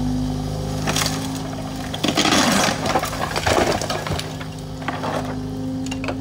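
Excavator diesel engine running steadily while its Rototilt head pushes over a stone cottage wall; about two seconds in, stone and rubble fall with a crunching clatter lasting nearly two seconds, with single sharp knocks before and near the end.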